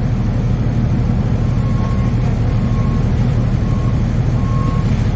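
Steady low drone of a 2009 NABI 40-LFW hybrid bus's Cummins ISB 6.7L diesel and drivetrain heard from inside the bus. From about two seconds in, a short high beep repeats at uneven intervals.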